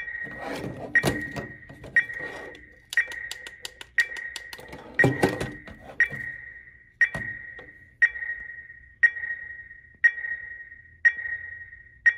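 Electronic laser tag vest and blaster in setup mode, giving a single high beep about once a second, each with a short ringing tail. Plastic button clicks and handling knocks come in the first two seconds and again around five seconds in.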